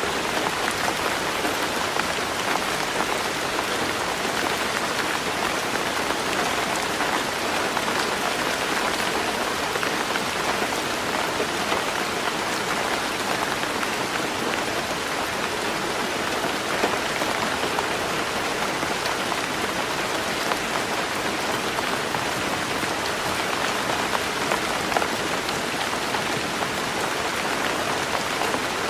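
Heavy rain falling steadily on a roof, a dense even patter with scattered sharper drop ticks.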